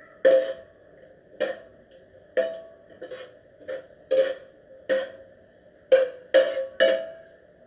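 Metal spatula knocking and scraping against a frying pan while stirring, about ten sharp knocks at uneven intervals, each with a short metallic ring.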